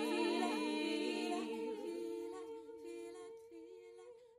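A cappella vocal music: layered voices hold a humming chord that fades away over the last couple of seconds.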